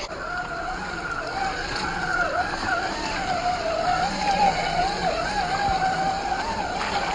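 Small electric RC-crawler drivetrain whining, a 540 35T brushed motor, its pitch wavering up and down with the throttle as the truck pushes through mud and water.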